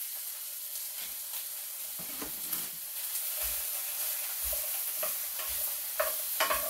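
Vegetables and onion sizzling in a hot frying pan as they are stirred, the utensil scraping and knocking against the pan, more often in the second half.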